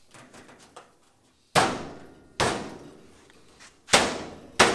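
Four heavy blows struck on a Ford Model A's steel rear body panel, each ringing out briefly, the last two close together. The panel is being beaten to shift it into line with the quarter panel and rear crossmember.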